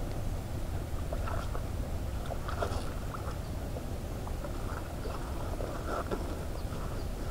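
Water sloshing and splashing in a shallow rice-field channel as hands work a cloth fish-trap net below the surface, in small clusters of splashes, with a steady low wind rumble on the microphone.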